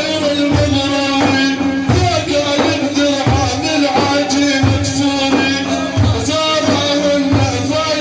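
Music: a held, wavering melodic line over a steady low drum beat, about one beat every 0.7 seconds.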